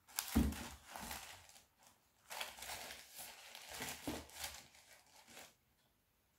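Tissue paper rustling and crinkling as a pair of slide sandals is handled and set down on it, with soft thumps about half a second in and again around four seconds.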